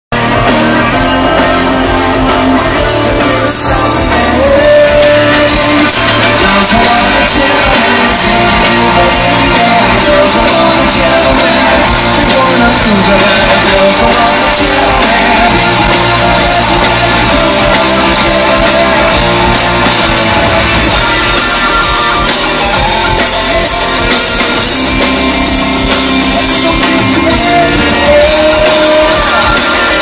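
Rock band playing live on stage through a PA at a sound check, with electric guitars and drum kit, and a voice singing over them.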